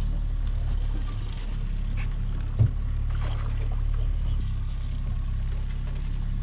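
Boat engine running steadily at trolling speed, a constant low hum, with a single short thump about two and a half seconds in.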